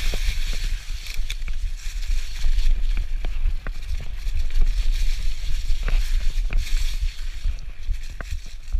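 Mountain bike rolling over a dirt singletrack covered in dry fallen leaves: the tyres crackle through the leaves, with frequent small clicks and rattles from the bike over a steady low rumble.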